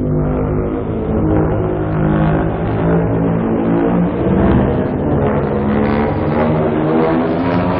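Godzilla monster sound effect: a long, loud, low rumbling sound with a steady pitched drone in it, held without a break.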